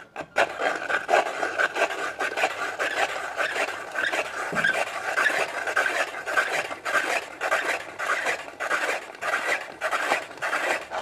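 A hand-cranked plastic ice shaver being turned steadily, its blade scraping and crunching through ice cubes into fine shaved ice: a continuous gritty rasp full of quick crackles.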